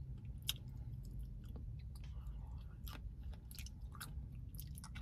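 Close-miked chewing of fresh fruit such as blueberries: irregular soft wet smacks and mouth clicks over a steady low hum.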